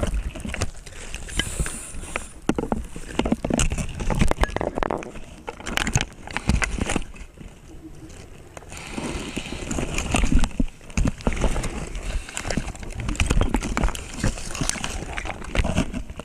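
A scuba diver breathing through a regulator, recorded by an underwater helmet camera: exhaled air bubbles rush past in uneven waves, with a quieter spell around the middle.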